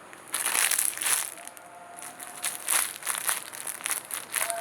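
Crinkling and rustling in several irregular bursts, from a donut squishy toy being handled close to the microphone.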